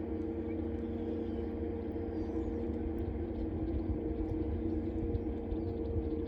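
A steady mechanical hum with a low rumble beneath, unchanging throughout, with a few faint high bird chirps above it.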